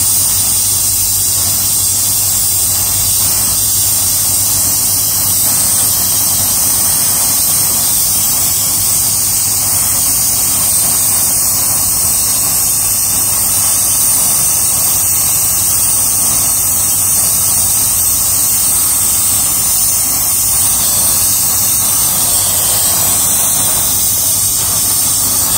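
Gas brazing torch flame hissing steadily while it heats a brazed joint on a refrigerator filter drier, with a low hum underneath.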